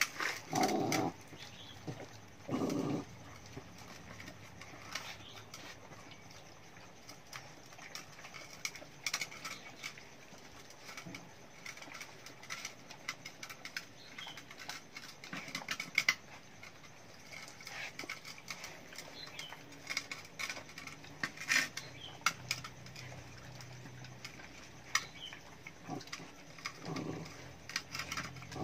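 Several small dogs eating from metal pans: a steady run of clicks, chewing, lapping and pan clinks. A few brief low dog sounds stand out in the first three seconds and again near the end.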